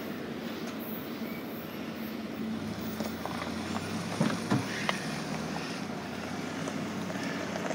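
Low, steady rumble of a freight train moving away after passing the grade crossing, with wind on the microphone. A few light clicks come about three to five seconds in.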